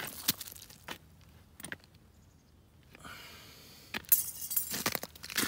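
Sharp taps and clicks as a tossed pickerel lands and skids out across clear ice. Near the end comes a denser burst of glassy clinking and crunching of ice.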